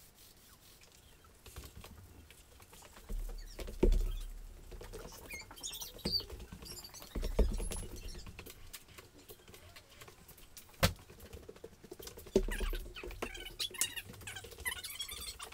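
Work noises from gluing laminate with a roller and water-based contact cement: scattered light clicks and squeaky, sticky scraping, with dull knocks three times and one sharp click near the end.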